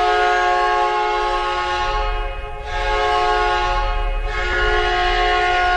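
Winnipeg Jets' 1992 arena goal horn sounding one long, steady blast, dipping briefly about two seconds in.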